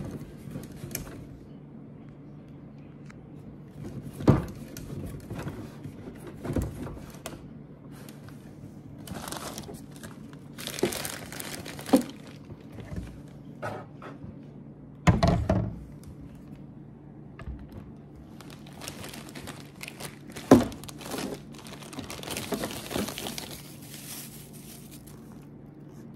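Plastic packaging crinkling and rustling while plastic sink parts are handled, with several hollow knocks as parts are moved and set down, the sharpest about two-thirds of the way through. A low steady hum sits underneath.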